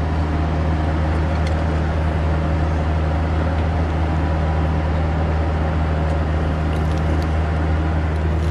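Mini excavator's diesel engine running at a steady drone, with a few faint clicks over it.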